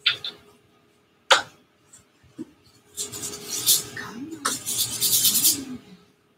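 Paintbrush scrubbing on a stretched canvas: a rasping rub in quick repeated strokes for about three seconds in the second half, after two sharp taps near the start.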